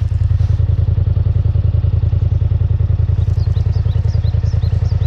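A steady low mechanical drone with a fast, even pulse, like an engine running, with a run of short high chirps about three seconds in.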